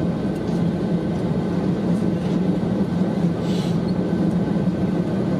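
Cabin noise of an Airbus A320-214 taxiing slowly on idling CFM56 engines: a steady low rumble with a thin, constant whine above it.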